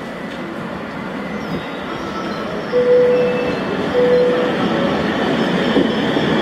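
ČD Class 380 (Škoda 109E) electric locomotive and its coaches arriving at a platform, the rumble of wheels on rails growing louder as the train approaches. Two short steady tones, about a second apart, sound midway.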